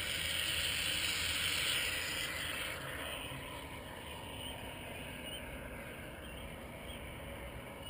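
Aerosol can of expanding spray foam hissing as foam is dispensed into a pipe fitting, strong for about two and a half seconds, then fainter.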